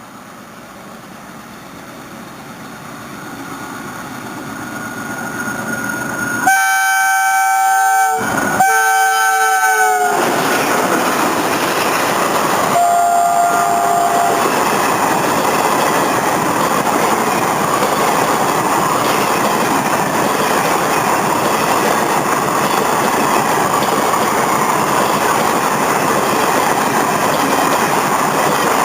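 WDM2 diesel locomotive drawing nearer and louder, then sounding its chord horn in two long blasts of about a second and a half each. A shorter, lower-pitched blast follows a few seconds later, and the passenger train then clatters steadily past on the rails.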